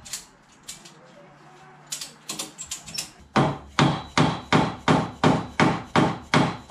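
Ratchet strap being cranked tight across a UTV chassis. A few scattered clicks come first, then from about halfway a steady run of loud ratchet clicks, about three a second, as the handle is worked back and forth.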